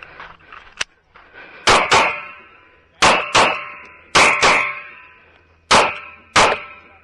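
Sig Sauer P365 9mm pistol fired in four quick pairs of shots, eight shots in all, each pair followed by a short metallic ring.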